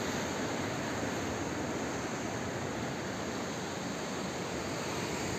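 Sea surf washing onto rocks at the foot of a cliff, heard from above as a steady, even rush.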